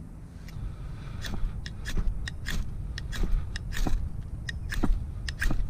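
A run of short sharp scrapes and crackles, about a dozen at irregular spacing, from working dry palm tinder to start a campfire.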